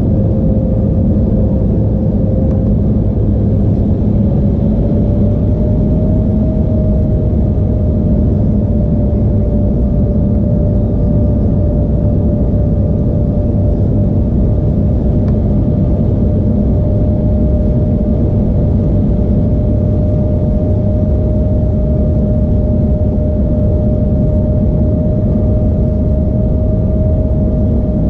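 Cabin noise inside an Embraer E175 on descent: a steady rush of air and low rumble from the GE CF34 turbofans, with one clear engine tone that rises slightly in pitch about four seconds in and then holds steady.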